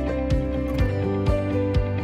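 Background music with a steady beat of about two strikes a second over held notes, the bass changing chord about a second in.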